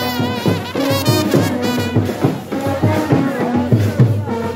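Loud music with a steady, regular drum beat. A wavering high melody runs over it for the first couple of seconds.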